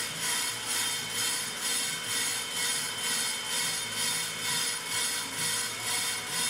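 Pro-Cut on-car brake lathe running, spinning the hub and brake rotor: a steady hiss and whine that swells and fades evenly about twice a second.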